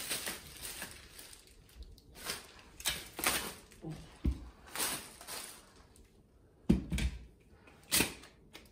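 Plastic wrapping rustling as it is pulled off a collapsed aluminium telescopic ladder, with the ladder knocking down onto a wooden floor several times; the loudest knocks come about seven seconds in and again near the end.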